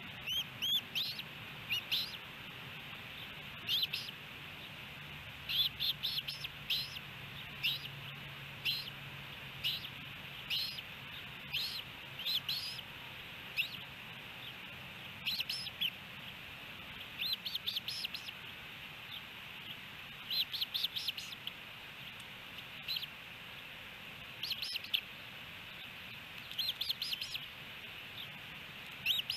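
Ospreys giving high-pitched chirps in quick runs of several notes, repeated every second or two.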